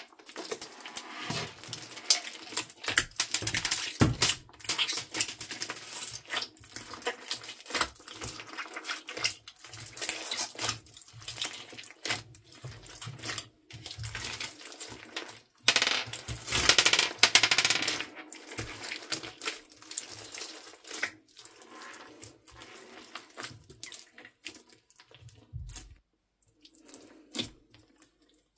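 Crunchy slime packed with beads and foam balls being kneaded and pressed by hand: a continuous run of crackling, clicking crunches and squelches, louder for about two seconds a little past the middle.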